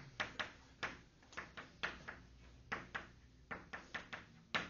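Chalk writing on a blackboard: an irregular run of quick sharp taps and short scratches, roughly three to four strokes a second.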